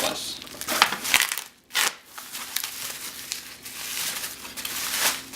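Packaging crinkling and rustling in bursts as a boxed strobe is unwrapped by hand, with a short lull about a second and a half in.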